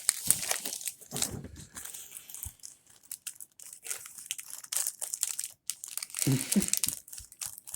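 Foil wrapper of a Pokemon trading card booster pack being torn open and crinkled, with a dense run of irregular sharp crackles.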